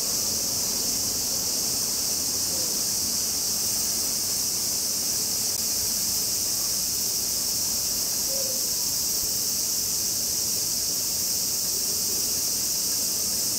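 Steady high-pitched insect chorus, a constant sizzling hiss that does not change.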